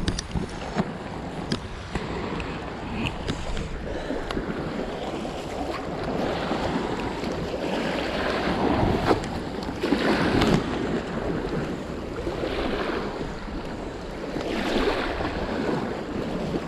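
Wind buffeting the microphone over small waves washing against the shore, the rush swelling louder in gusts about halfway through and again near the end.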